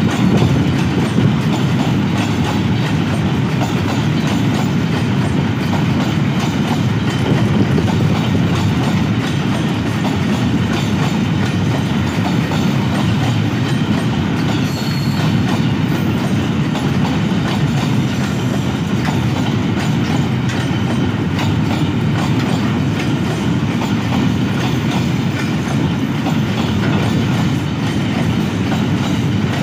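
Empty ZBKC open-top freight wagons rolling past steadily, their steel wheels clattering over the rail joints in a continuous rumble.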